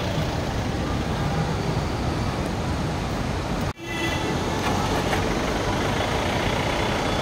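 Road traffic noise from vehicles held in a traffic jam: a steady din of engines running. It breaks off sharply for a moment about halfway through.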